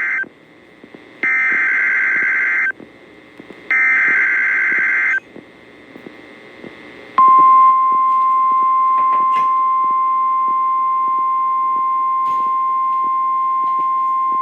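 NOAA Weather Radio Emergency Alert System broadcast: the screeching two-tone SAME data header bursts, the tail of one burst and then two more, each about a second and a half long with gaps between, marking the start of a new alert. About seven seconds in, the steady single-pitch 1050 Hz warning alarm tone starts and holds.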